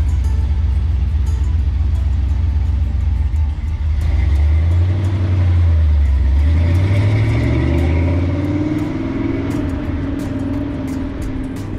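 The 1955 Chevrolet 3100 pickup's 355 cubic-inch big-cam V8 rumbling low, then revving up about four seconds in as the truck pulls away, and fading off after about eight seconds as it drives away.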